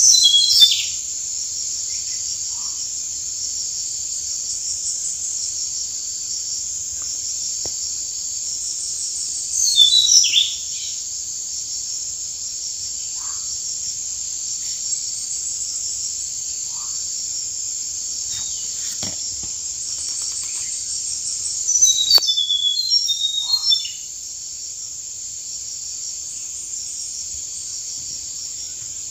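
Steady, high-pitched insect chorus, with a bird calling in three short bouts of quick falling chirps: near the start, about ten seconds in, and again around twenty-two seconds in. The insect chorus gets a little quieter after the last bout.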